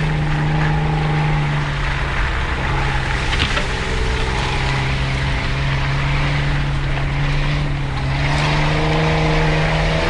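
Off-road 4x4's engine pulling steadily at low revs on a muddy trail, heard from inside the cabin. The engine note drops a little about two and a half seconds in and picks up again near the end.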